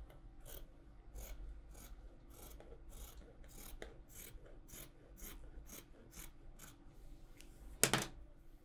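Scissors cutting through fabric along a chalked line, a steady run of snips about two to three a second. A louder brief rustle comes near the end as the cut piece is moved aside.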